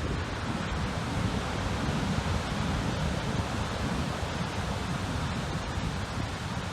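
Steady rush of rough water, with wind blowing across the microphone.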